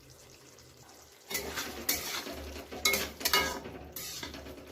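A spoon stirring and scraping a curry of bamboo shoots in a cooking pot, mixing in freshly added coriander leaves. It starts about a second in, as a run of scrapes with a few sharper knocks against the pot.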